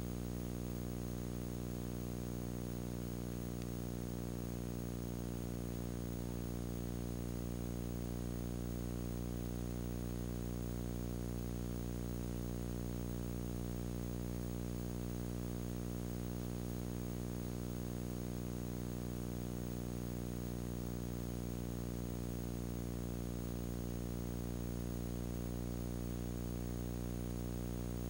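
Steady electrical mains hum, a low buzz with many overtones, over a constant hiss, unchanging throughout.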